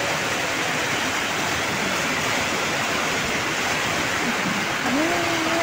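Strong typhoon wind rushing steadily outside an open window, with light rain, an even hiss with no let-up.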